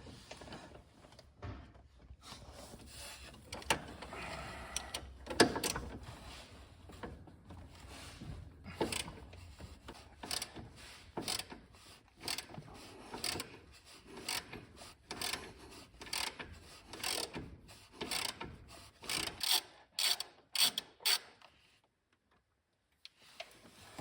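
Ratchet with an E20 Torx socket clicking in short irregular strokes as a fastener is worked loose on the steering rack, with softer metal scraping between strokes; it stops near the end.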